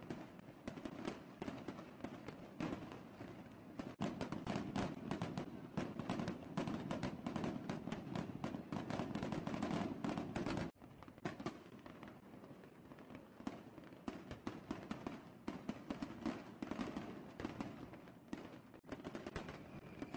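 Fireworks display: a rapid, dense stream of bangs and crackles from shells bursting overhead. It is loudest through the middle of the stretch, drops abruptly about halfway through, and keeps going at a lower level.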